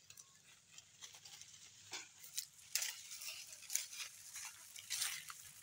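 Dry leaves and twigs crackling and rustling in irregular short bursts.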